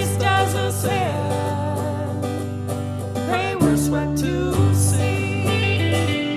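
Band music with a sung vocal line over guitars and held bass notes, in a country or bluegrass style.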